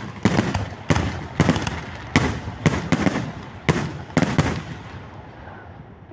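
Fireworks going off: a quick series of sharp bangs, about two a second, that stops about four and a half seconds in, leaving a fading rumble.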